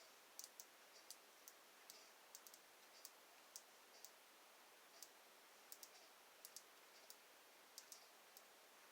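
Faint, irregular light clicks, about two or three a second, from a Brinks three-wheel combination padlock being worked with a steel guitar-string wire.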